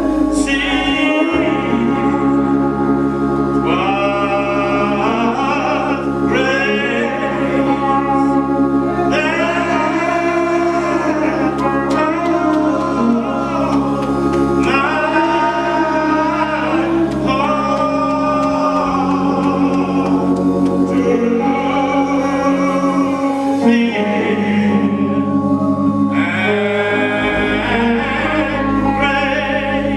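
A man singing gospel phrases into the pulpit microphone over held low chords that change every few seconds.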